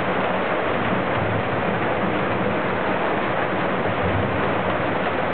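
Rain falling, a steady, even hiss.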